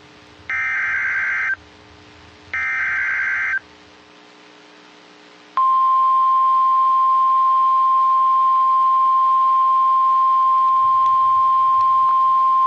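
NOAA Weather Radio EAS alert: two one-second bursts of SAME header data tones, about a second apart, carrying the encoded Severe Thunderstorm Warning. After a short pause, the steady 1050 Hz Weather Radio warning alarm tone begins about halfway through and holds.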